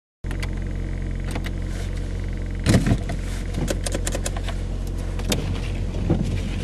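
Car engine running low and steady, heard from inside the cabin. Scattered sharp clicks and taps come over it, with a louder cluster about two and a half seconds in.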